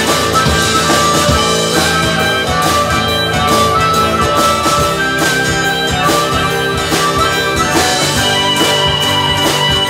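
Live rock band playing an instrumental break: a harmonica, played into the vocal mic, leads over strummed acoustic guitar and a drum kit.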